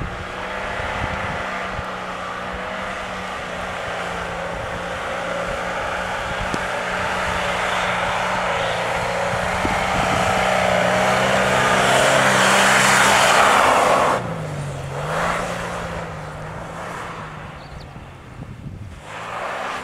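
Mitsubishi Pajero's engine held at steady high revs while the four-wheel drive ploughs through snow and mud, with a rising hiss of spray. About two-thirds of the way in the engine note drops suddenly, dips and picks up again, then runs quieter.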